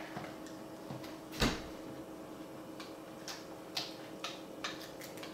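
Spatula knocking and scraping against a metal muffin tin as cooked eggs are lifted out of the cups: one louder knock about a second and a half in, then a run of light clicks about every half second.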